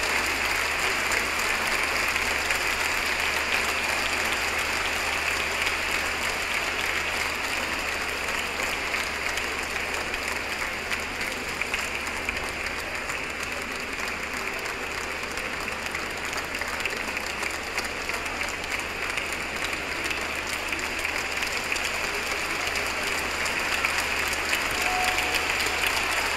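Large theatre audience applauding steadily, easing a little midway and swelling again near the end.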